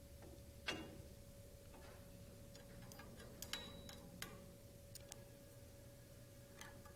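Faint, scattered clicks and taps of small metal parts being handled, a straight edge and 1/16 inch shims being set against the chain sprockets, over a faint steady hum.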